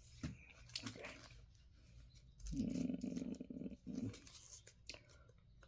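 Faint handling of plastic action-figure packaging and parts: scattered small clicks and scrapes, with a louder, low rubbing sound lasting about a second around the middle.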